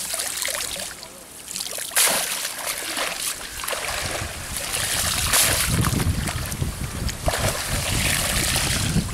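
Water splashing and streaming off a mesh fishing net as it is hauled out of the water, with a sharper splash about two seconds in. From about four seconds in, wind buffets the microphone with a low rumble.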